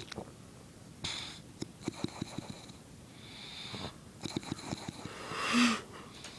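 Bulldog snoring: three noisy breaths, each with a quick rattling flutter in it. The last breath, about five and a half seconds in, is the loudest.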